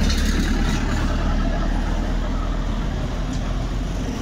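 Steady low rumble of road traffic, a motor vehicle going by, easing off slightly toward the end.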